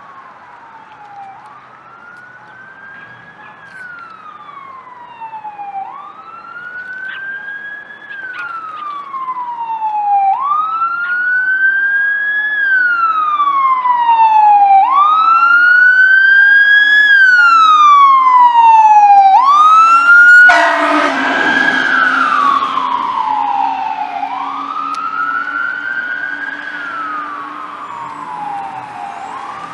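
A 2012 KME pumper fire engine's siren wailing, rising quickly and falling slowly in pitch about every four and a half seconds, growing louder as the engine approaches and fading as it passes and moves away. Shortly after a few quicker rising sweeps, a loud air-horn blast sounds about two-thirds of the way through.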